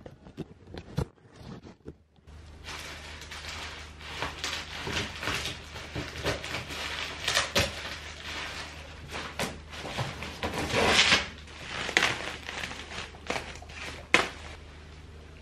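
Crinkling and rustling of a large plastic-wrapped woven polypropylene sack parcel being cut open with scissors and pulled apart, with many sharp snips and clicks. It starts about two seconds in, after a few isolated clicks.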